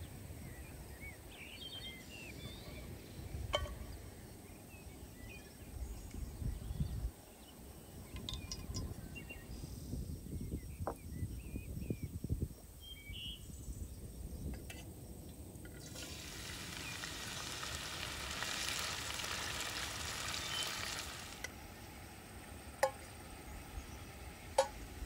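Food sizzling in a frying pan over a charcoal fire for several seconds in the middle. Birds chirp near the start, and two sharp clinks come near the end.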